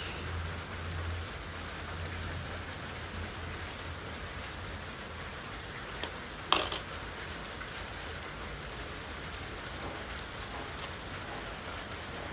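Steady rain falling, an even hiss, with one sharp click about halfway through.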